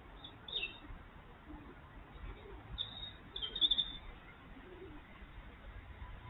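A small bird chirping: a short high chirp about half a second in, then a quick run of chirps around three to four seconds in.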